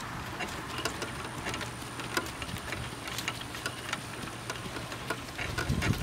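A miniature horse's driving cart in motion over grass: irregular light clicks and rattles from the cart and harness, several a second. A faint steady high-pitched tone runs beneath from about half a second in.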